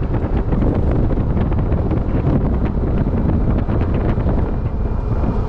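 Wind buffeting the microphone on an open electric Club Car DS golf cart as it accelerates through about 25 mph, with a steady low rush of tyre and road noise underneath.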